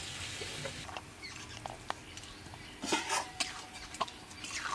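Metal spatula stirring a wet chicken and potato curry in a metal pot, with irregular scrapes and knocks against the pot's sides, most of them bunched about three seconds in.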